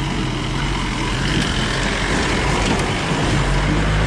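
A motor vehicle's engine running steadily close by, a low drone under a constant rushing noise.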